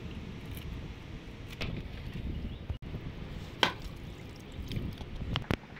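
A husked coconut being struck and cracked open: a few sharp knocks, the loudest about two-thirds of the way through, over a low rumble.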